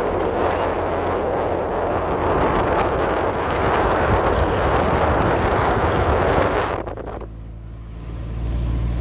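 Wind and road noise rushing in through an open car window while driving, over a low engine hum. About seven seconds in the rushing noise drops away sharply, leaving mostly the low engine hum.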